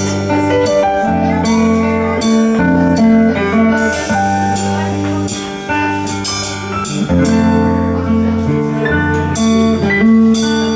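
A live band playing the instrumental outro of a song: archtop electric guitar and keyboard over a sustained bass line, with the drum kit's cymbals struck repeatedly.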